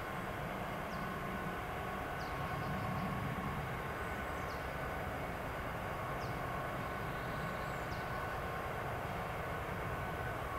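Freight locomotives at a station running steadily, with a low engine rumble and a faint steady whine. Short, faint, high falling chirps repeat about every second or so.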